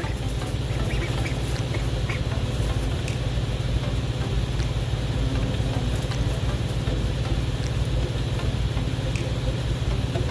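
Ducks quacking faintly now and then over a steady low rumble.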